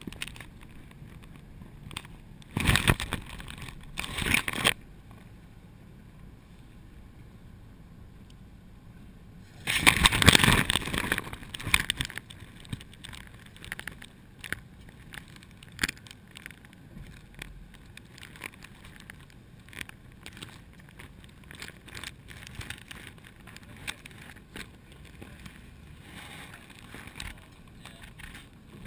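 Handling noise on a GoPro in its waterproof housing: scraping and knocking, loudest in two rough stretches about three and ten seconds in, with scattered small knocks between.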